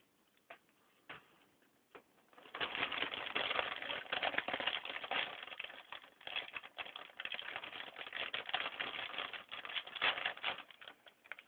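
Post Mini Cinnamon Churros cereal being poured from its bag into a bowl: a few light clicks, then from about two and a half seconds in a dense, steady rattling patter of small crunchy pieces.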